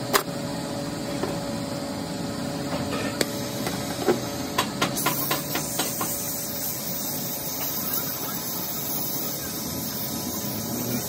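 Gas torch flame hissing steadily as it melts lead over the lugs of a lead-acid battery plate group clamped in a jig, fusing them into a connecting strap. A few sharp metal clicks and taps come in the first half.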